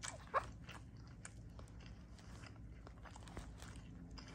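Soft chewing and mouth sounds of a person eating takeout food close to the microphone, with scattered light clicks from a fork in the takeout tray.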